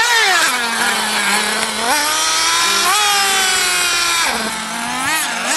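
Small nitro engines of radio-controlled model cars running, with a high buzzing pitch that rises and falls as the throttle is worked. For a while near the middle two engines are heard at once at different pitches.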